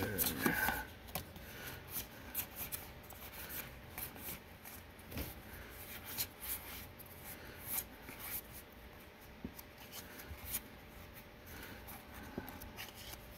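Magic: The Gathering trading cards being handled and flipped through one by one, sliding against each other, in a run of short, irregular card snaps and rustles.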